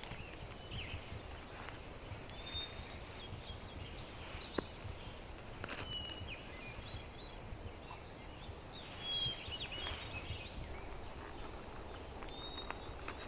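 Forest ambience: small birds chirping in short, high calls scattered throughout, over a low background rumble. A sharp click about four and a half seconds in and a brief louder rustle about nine seconds in come from handling.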